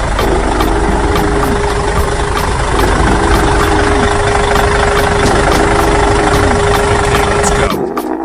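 A loud motor or engine running steadily with a held hum, cutting off abruptly near the end.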